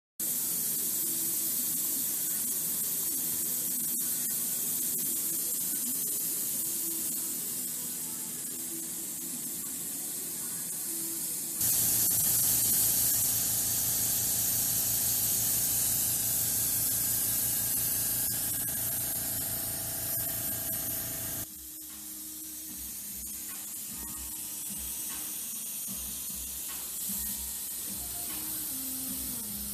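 Airbrush spraying paint: a steady hiss of compressed air through the nozzle. The hiss jumps louder about twelve seconds in and drops back about twenty-one seconds in.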